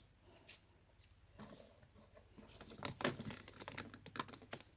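Small plastic parts of a toy shopping trolley being handled and pressed together: scattered light clicks and rustles, busiest about three seconds in.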